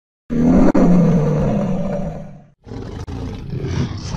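Sound effect of a dragon's roar: a loud low growl that fades out after about two seconds, followed after a short break by a building rush of fire breath.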